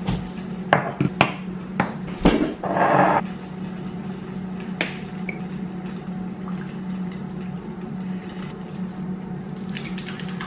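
Glass sauce bottles and a small glass jar clinking and tapping on a kitchen counter, several sharp clicks in the first couple of seconds, with a short rush of sauce being poured into the jar about two and a half seconds in. A few light clicks of stirring come near the end, over a steady low hum.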